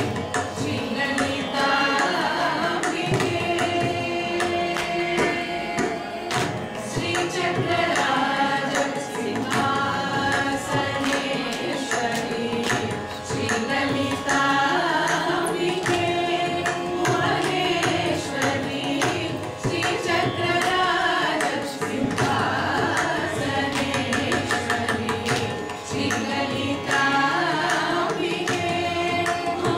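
A group of women singing a Carnatic kriti together in ragamalika form, their voices gliding and ornamenting the melody, with hand-drum accompaniment.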